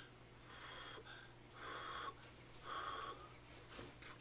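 A person breathing noisily through the nose in three short, wheezy puffs about a second apart while eating a spoonful of cream, with a faint click near the end.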